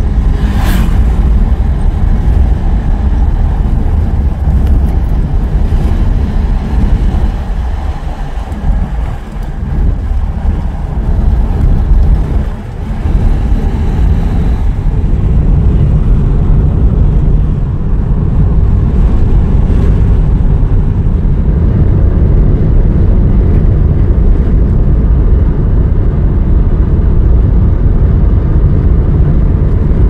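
Road and wind noise of a moving car: a loud, steady low rumble that dips briefly about a third of the way in.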